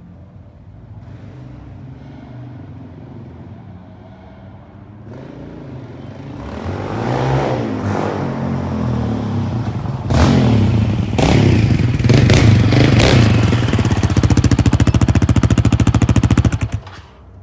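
Yamaha Raptor 700R's single-cylinder engine through an HMF Competition slip-on exhaust, running low at first, then revving up hard from about six seconds in. There are brief drops around ten and eleven seconds, and it is held at high revs with a fast even pulse before cutting off abruptly near the end.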